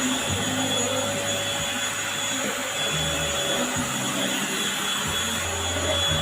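Eureka corded stick vacuum cleaner running steadily, its motor giving an even rush of air with a constant high whine.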